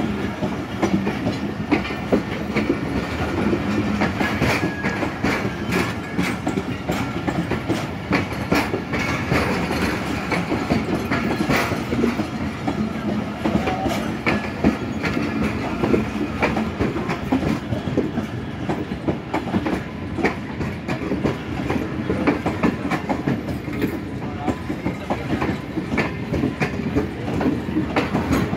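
Pakistan Railways passenger coaches rolling past close by as the train pulls out of the station, a steady rumble with wheels clacking over the rail joints.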